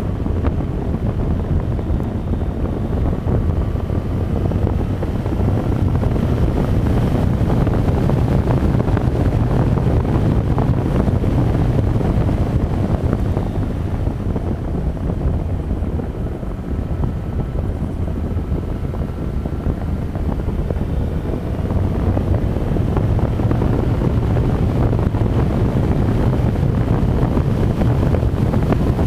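Motorcycle riding at road speed: wind buffeting the microphone over the engine running steadily. The sound eases off briefly about halfway through, then builds again.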